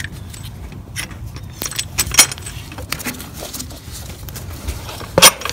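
Light metallic clinks and jingles of hand tools and bolts being handled while unbolting parts around the alternator, scattered irregularly, with a sharper clink near the end.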